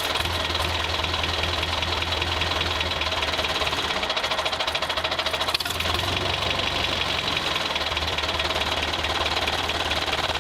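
Small engine running steadily with a fast, even knocking rhythm.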